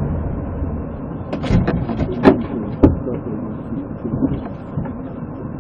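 A handful of sharp clicks and knocks between one and three seconds in, the loudest about two seconds in, over a steady low rumble.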